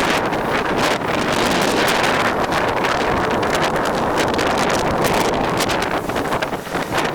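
Blizzard wind blowing hard across the microphone, a loud, steady rushing noise.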